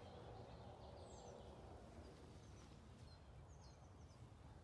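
Near silence with a low background hush, broken by faint, short, high chirps from birds every second or so.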